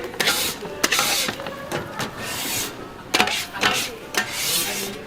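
Irregular rough scraping and rubbing strokes, several in a row, with a few sharp clicks between them.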